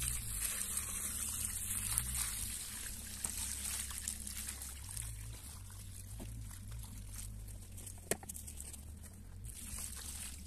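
Diluted nettle manure poured from a plastic bucket, splashing and trickling onto a mix of biochar and horse manure in a mortar tub. The pour is strongest in the first couple of seconds, then eases, over a steady low rumble. There is a single sharp knock about eight seconds in.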